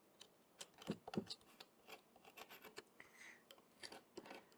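Faint irregular clicks, taps and short scrapes of hands and a tool working at an old wooden sash window, trying to free a stuck part.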